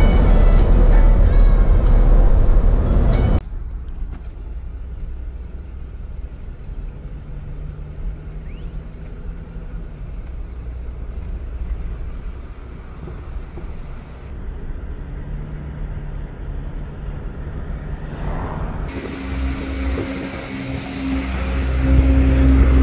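Loud road noise of a vehicle driving at highway speed, cutting off suddenly about three seconds in to quieter street ambience with a steady low engine hum from traffic. Near the end a vehicle engine grows louder close by.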